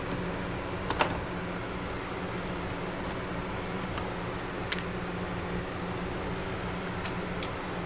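A steady mechanical hum with hiss, with a few light clicks or taps over it, the loudest about a second in.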